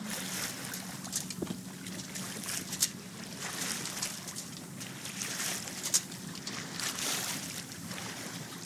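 Water splashing and rushing along the hull of a small sailing keelboat under way, swelling every second or so, with a couple of sharp knocks.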